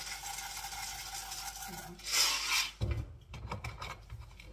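Popcorn kernels poured from a glass jar into a metal cooking pot, a steady rattling for about two seconds with a louder rush near the end of the pour. Then come knocks and clicks as the jar is handled and its lid screwed back on.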